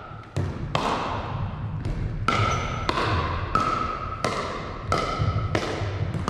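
A pickleball rally: the hollow plastic ball struck back and forth with paddles, a steady run of sharp ringing pocks about every two-thirds of a second, each echoing in the gymnasium hall.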